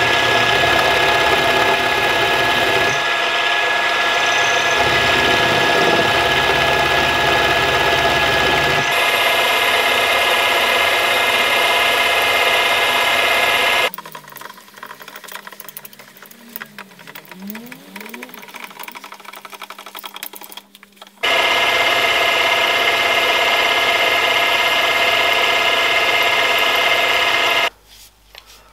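Milling machine running steadily as an end mill plunges into a lathe top slide to spot flat bottoms for drilling. About halfway through the machine sound drops away for several seconds, then it runs again and stops near the end.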